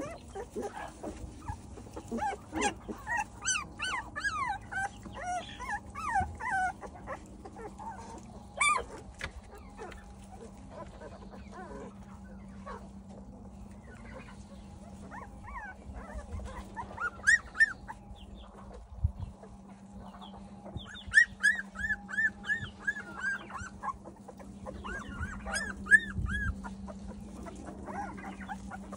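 Young puppies whimpering and squeaking, a string of short high cries in clusters with quieter gaps between, over a faint steady hum.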